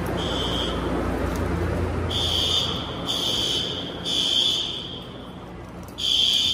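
Fire alarm horns sounding the evacuation signal in a temporal-three pattern: groups of three high-pitched beeps with a pause between groups. A low background rumble underneath fades out about two seconds in.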